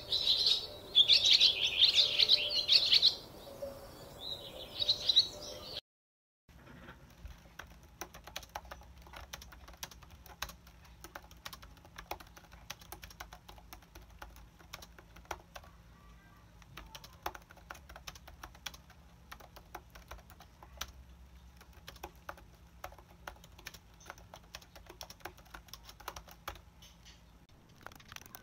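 Typing on a laptop keyboard: a steady patter of light key clicks that runs on for over twenty seconds. Before it, for about the first six seconds, loud high-pitched bursts, then a sudden cut to the typing.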